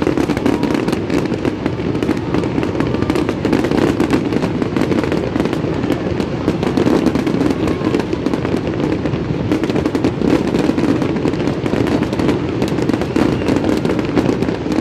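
Fireworks display going off in a continuous barrage: many close-together bangs and crackles with no break.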